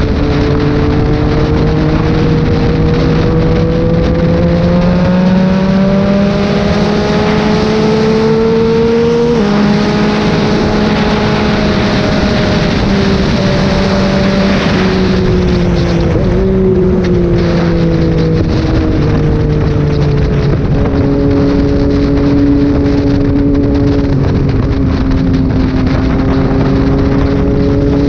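Yamaha MT-09's three-cylinder engine heard from on board under way, its revs climbing steadily for about nine seconds, dropping sharply at an upshift, dipping once more, then holding fairly steady at cruising speed. A rushing hiss of wind runs under it.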